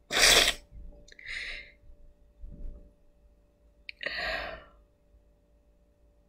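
A woman crying without words: three short, breathy sniffles and sobbing breaths. The loudest comes at the start, the others about a second and four seconds in.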